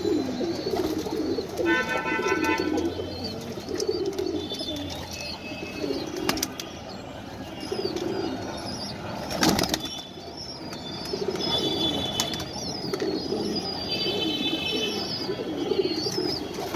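A flock of domestic pigeons cooing over and over while they feed, with the light tapping of beaks pecking grain and higher chirps now and then. A brief louder flutter comes about nine and a half seconds in.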